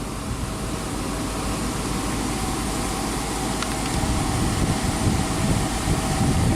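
Excavator engine running steadily, with rougher, uneven low rumbling from about four seconds in.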